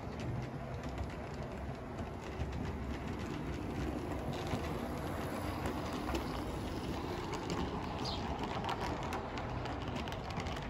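OO gauge model steam locomotive and coaches running past: a steady motor and wheel rumble with a quick run of clicks as the wheels cross the rail joints, thickest in the second half.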